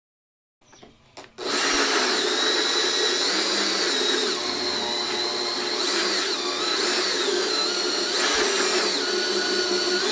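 Electric drill with a hole-saw bit cutting through a car side-mirror housing. It starts about a second in and runs steadily, its pitch wavering as the speed rises and dips while it bites.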